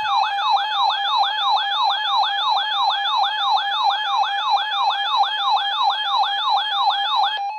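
Electronic siren-style weather alert alarm: a falling sweep repeating about three and a half times a second over a steady tone. It cuts off suddenly near the end. It announces a tornado warning.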